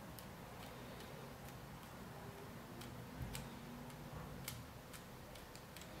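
Small combination padlock's number wheels clicking as a thumb turns them notch by notch: about ten faint, irregularly spaced clicks.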